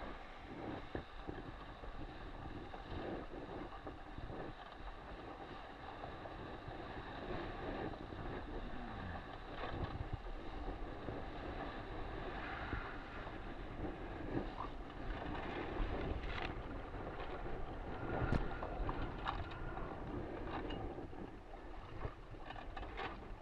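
Wind buffeting the microphone over water rushing and splashing along the hull of an RS600FF hydrofoil sailing dinghy. A few sharp knocks come in the second half.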